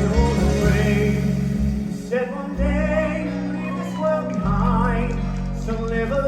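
Live band music with a voice singing a melody over a steady bass line, the bass dropping out briefly about two seconds in.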